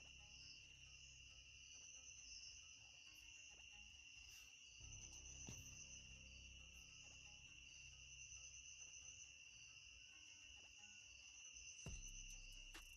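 Near silence, with faint steady insect trilling, crickets by the sound of it, throughout. A few quick keyboard key clicks come near the end.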